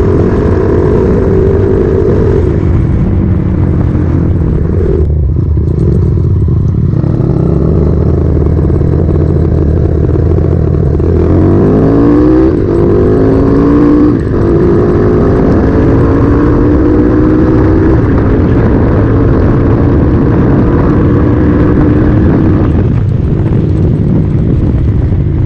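Bored-up 250cc single-cylinder engine of a Honda Megapro Mono / Verza motorcycle under way. About halfway through the revs climb through the gears, with short breaks at the shifts, then settle into a steady cruise.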